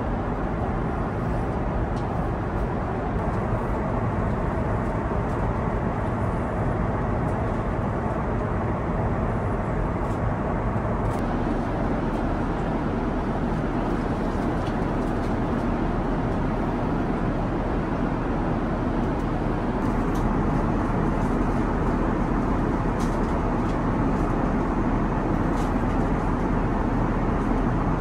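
Steady rushing cabin noise inside an Airbus A350-900 at cruise, the airflow and engine sound heard from a seat in the cabin.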